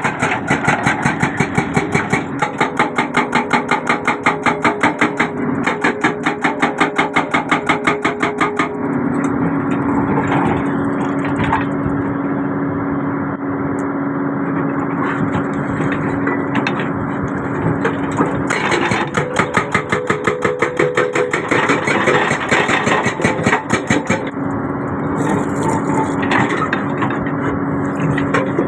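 Excavator-mounted hydraulic breaker hammering in a fast, even rhythm of blows over the excavator's running engine. The hammering stops about a third of the way in, leaving the engine running steadily, then starts again past the middle for several seconds.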